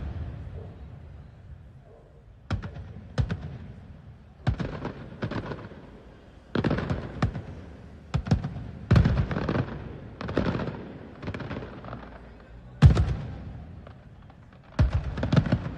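Fireworks going off: about a dozen sharp bangs at irregular intervals, some in quick pairs, each trailing off in an echo.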